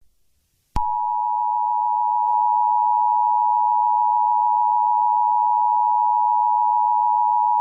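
Emergency alert attention signal: two steady tones sounding together just below a thousand hertz, starting abruptly about a second in and holding unchanged.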